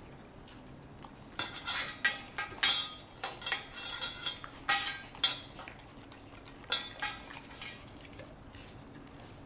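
A dog's food bowl clinking and clattering in an irregular run of sharp knocks for about six seconds as a Saint Bernard puppy eats from it.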